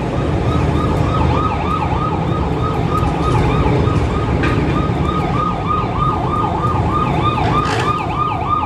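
Emergency vehicle siren sounding in a fast yelp, a quick falling wail repeating about three times a second, over a steady low rumble.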